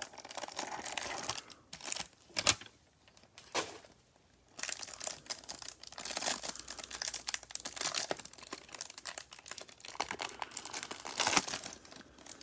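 Cardboard hanger box being handled and opened, then a cellophane-wrapped stack of trading cards crinkling and tearing as the plastic wrapper is peeled open. After a short quiet pause, the crinkling runs steadily from about a third of the way in.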